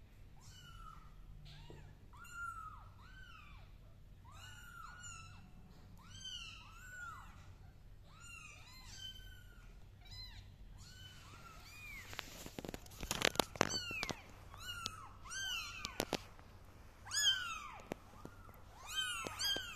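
Young kittens mewing over and over: short, high calls that each rise and fall, one or two a second. About twelve seconds in the calls get louder and closer, with a brief run of knocks and rustling.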